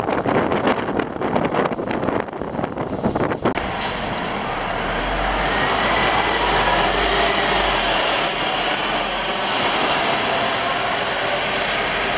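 Uneven rumble and rattle heard inside the upper deck of a Scania UNVI Urbis CNG double-decker bus on the move. After an abrupt cut the same bus is heard from the kerb pulling away from the stop: a low engine hum and a faint whine that rises and falls, over steady traffic noise.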